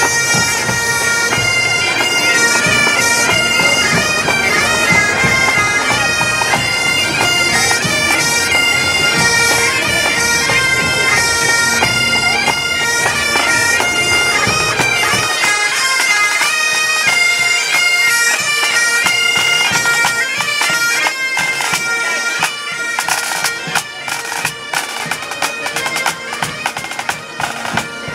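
Pipe band of Great Highland bagpipes and drums playing a march tune. About halfway through the deep sound thins out, and in the last few seconds sharp drum beats stand out as the loudness grows uneven.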